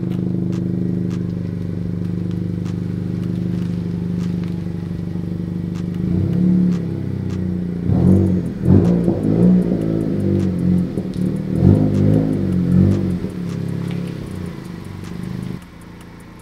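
2020 Honda Civic Si's turbocharged 1.5-litre four-cylinder idling steadily, then running unevenly with throttle blips for several seconds as the car is reversed into a garage. The engine is switched off about a second before the end.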